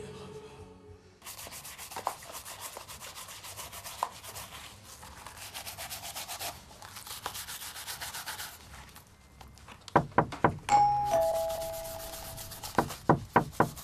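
A shoe brush scrubs rapidly back and forth over a leather shoe. Near the end a two-note doorbell chimes, the second note lower, with a few sharp knocks before and after it.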